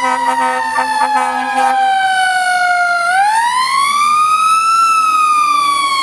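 Fire truck siren wailing: one tone sliding slowly down, then swinging back up about three seconds in and starting to fall again. A steadier, lower tone sounds beneath it for the first two seconds.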